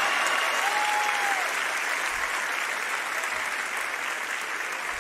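Large audience applauding after a punchline: steady clapping, loudest at the start and slowly dying down, with a brief whistle about a second in.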